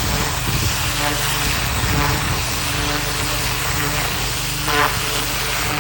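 Pressure washer running steadily while its water jet blasts weeds out of gravel, a constant motor drone under the hiss of the spray. A brief louder sound about five seconds in.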